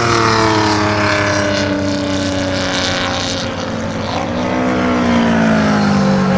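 Pre-1983 endurance racing motorcycles passing at speed with their engines at high revs. The pitch falls as one goes by, and about four seconds in another bike sweeps past, its pitch rising and then falling.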